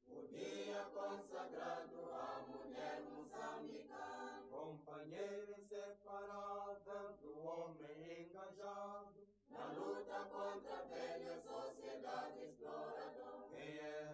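Faint chanting voices, with a short break about nine seconds in.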